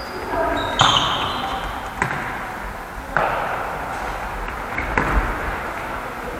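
Futsal ball struck and bouncing on a hard sports-hall floor: four sharp thuds about a second apart, each ringing on in the hall's echo, with a few short squeaks near the start.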